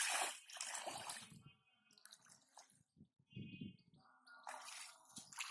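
Bare feet wading through shallow muddy water, sloshing and splashing for about the first second and a half, then quieter and more sporadic.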